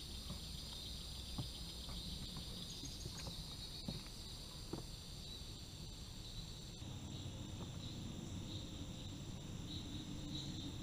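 Swamp insects calling in a steady high-pitched chorus that turns into an even pulsing chirp about two-thirds of the way through. A few faint clicks.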